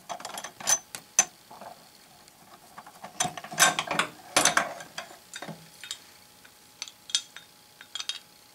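A screwdriver backing out two small screws, then the loose screws and a steel guide plate clicking and clinking against metal as they are taken off a portable band saw. The clinks cluster thickest about halfway through, with scattered single ticks after.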